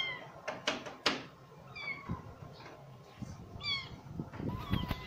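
Cat meowing: a few short, high-pitched meows, each falling in pitch, one every second and a half or so, with two sharp clicks about a second in.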